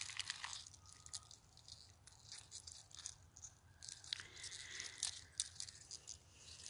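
Faint crackling and rustling of leaves as a hand handles a purple Brussels sprout plant: a run of small, irregular dry crunches and scrapes.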